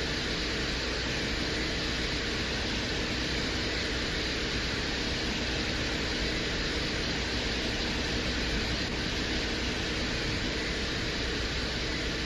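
Steady rushing hiss with a low rumble underneath, presented as the Venera 13 lander's audio recording from the surface of Venus.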